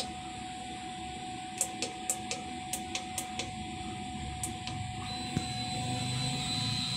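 DTF printer starting a print-head cleaning cycle over a steady hum: a run of sharp clicks from about a second and a half to three and a half seconds in, then a steady high whine that starts about five seconds in as the cleaning mechanism runs.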